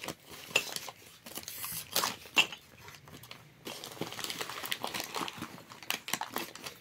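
Newspaper wrapping crinkling and rustling as hands pull the string off and open it, with scattered sharp crackles of paper.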